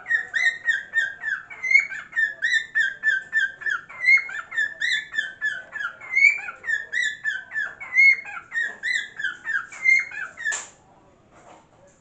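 Cockatiel singing: a rapid, chirpy run of short whistled notes, about three or four a second, that stops near the end.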